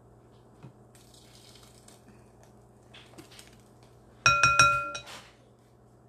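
Glass clinking: several quick knocks against kitchen glassware about four seconds in, each ringing briefly, as a spatula works blended salsa out of a glass blender jar into a glass bowl.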